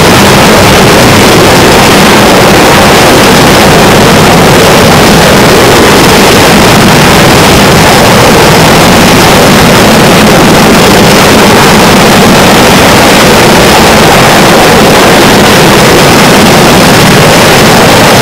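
Jet engines of an EA-6B Prowler running close by on an aircraft carrier's flight deck: a loud, steady rush that does not let up.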